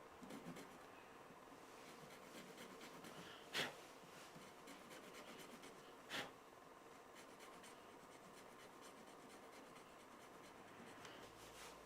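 Faint scratchy strokes of a small metal saw blade cutting into a plastic Swiss Army knife scale, with two louder knocks a few seconds apart.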